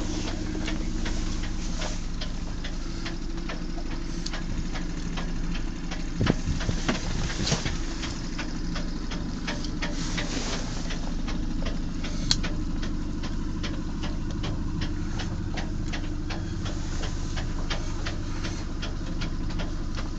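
A boat engine running steadily at an even idle, with many light clicks and knocks over it, a few louder knocks about six to eight seconds in.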